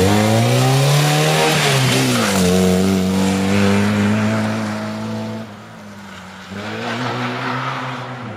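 Small hatchback rally car's engine revving hard as it launches and pulls away, its pitch rising, dropping at a gear change about two seconds in, then held high. It fades as the car moves off into the distance, with fainter revving near the end.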